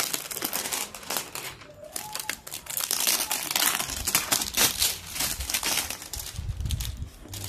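Clear plastic packaging bag crinkling and rustling in irregular crackles as a boxed camera is handled and slid out of it.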